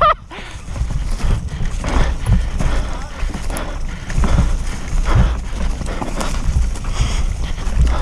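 Mountain bike rattling and thudding over bumps and roots on a steep dirt trail, irregular knocks every half second or so over the steady rumble of the tyres rolling.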